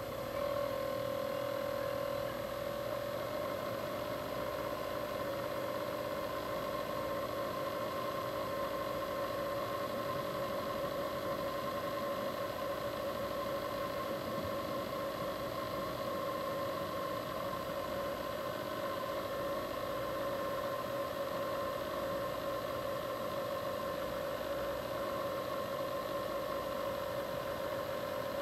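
A steady mechanical hum made of two even tones, which comes up a little in level about half a second in and then holds unchanged.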